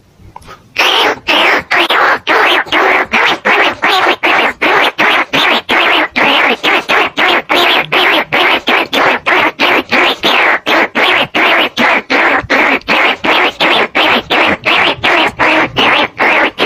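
Rat decoy call for greater bandicoot rats and rice-field rats: a fast, even train of harsh squeaky chirps, about three a second, starting after a short pause.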